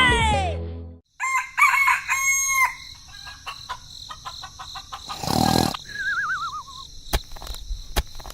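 Music cuts off about a second in, then chickens call: short clucking cries and a rooster crowing, with a wavering falling call and a few sharp clicks near the end.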